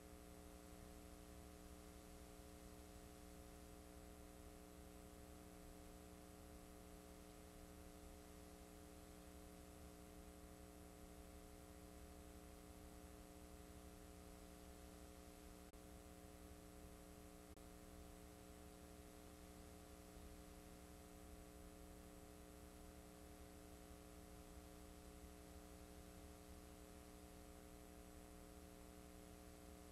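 Near silence: a faint, steady electrical mains hum over hiss, the noise floor of a blank stretch of videotape.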